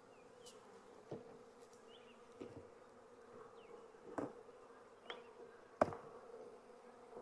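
A colony of honey bees buzzing in a faint, steady hum around an opened hive, broken by a few light knocks.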